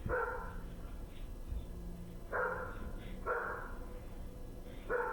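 A dog barking: four separate barks, the last three closer together, about two and a half, three and a half and five seconds in.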